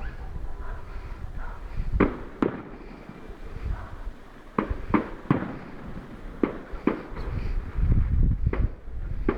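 Fireworks going off: a string of sharp bangs, several coming in quick pairs, over a low rumble that builds toward the end.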